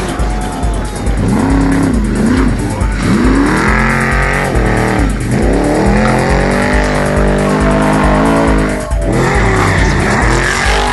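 Off-road racing trucks' engines revving hard and rising and falling in pitch as they race past, mixed with background music with a steady fast beat.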